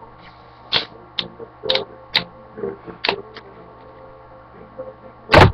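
A man chugging a drink, with a quick series of gulps and swallows at about two a second, then a short loud sound near the end.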